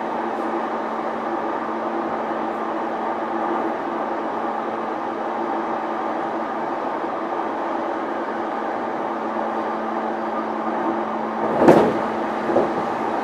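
Interior running sound of a JR East E233-1000 series electric train, recorded in motor car MoHa E233-1005. Wheels on rail and VVVF traction equipment keep up a steady hum at constant speed, with no rise or fall in pitch. Near the end there is a sharp knock, then a smaller one about a second later.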